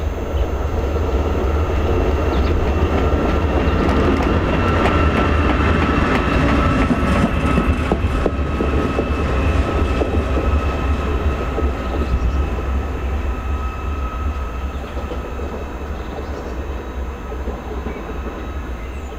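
Class 88 locomotive running light past on the rails: a steady rumble with a steady high whine, swelling to its loudest about four to nine seconds in, with a few wheel clicks, then slowly fading as it moves away.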